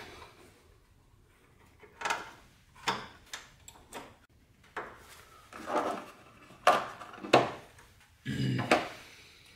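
A metal mounting bracket being worked into place behind plastic engine-bay trim: irregular scrapes and rubs with a few sharp knocks, the two sharpest past the middle, and a longer scrape near the end.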